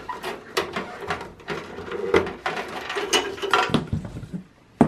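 Cables and plastic connectors being pulled out inside a steel desktop computer case: irregular rustling of wiring and handling clicks, with one sharp click near the end.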